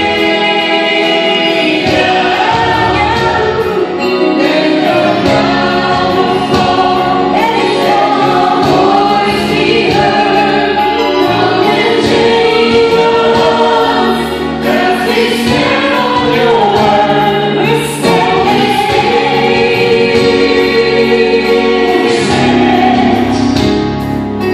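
Live contemporary worship music: a woman singing lead into a microphone, with band accompaniment and other voices singing along.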